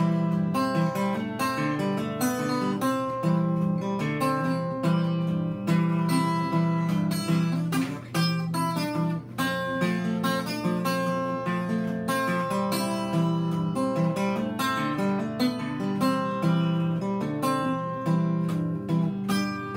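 Acoustic guitar played solo in a country blues style: a run of picked melody notes over a steady, alternating bass line.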